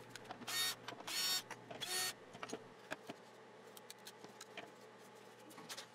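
A cut plywood workpiece being handled and lifted off a CNC router's wasteboard: three short rustling scrapes in the first two seconds, then scattered faint clicks and knocks, over a low steady hum.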